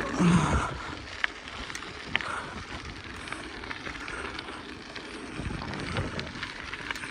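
BMX bike rolling down a paved road: tyre noise and wind buffeting the microphone, with scattered light clicks and rattles from the bike.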